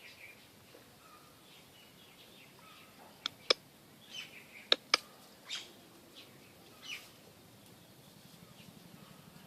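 Small birds chirping at intervals, with four sharp clicks in two quick pairs near the middle, the clicks being the loudest sounds.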